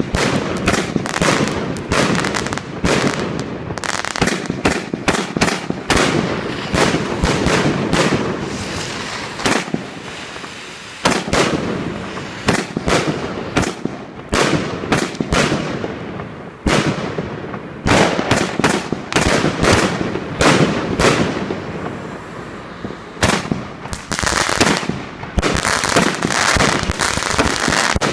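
Evolution Fireworks' 160-shot 'Golden Age' firework cake firing shot after shot in quick succession, each a sharp bang. The shots ease off about ten seconds in, then come faster and denser near the end.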